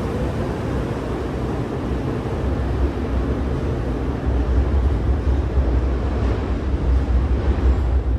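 Electric commuter train moving through the station, a steady rumble of wheels and running gear that deepens about two and a half seconds in.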